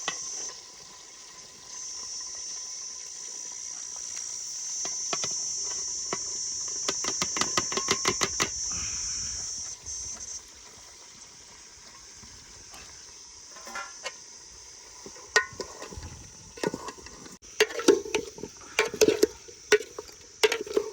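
Chicken drumsticks and onions cooking in a pot, with a metal ladle stirring, scraping quickly about a third of the way in and knocking against the pot near the end. A steady high insect chirring runs behind it and fades about halfway.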